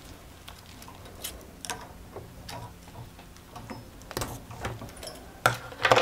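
Scattered light knocks, clicks and rustles of household items being handled and set down on a desk, with a few sharper clacks near the end.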